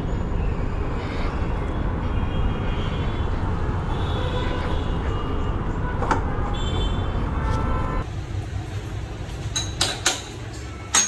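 Steady rumble of road traffic with a few short high tones over it. About eight seconds in it cuts abruptly to a quieter background, broken by a few sharp clicks.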